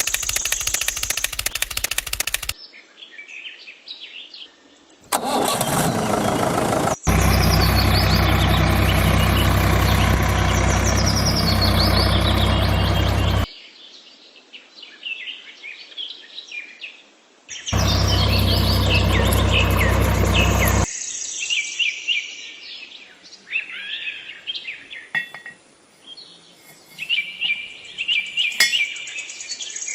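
A small engine on a model tractor starts and runs in loud bursts of a few seconds, the longest about six seconds. Birds chirp in the quieter gaps between the bursts.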